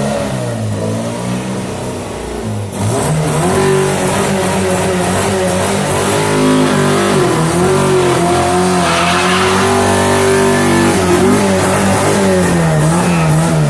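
Chevrolet Monza engine revving hard, its pitch repeatedly climbing and dropping as the throttle is worked. It gets louder about three seconds in.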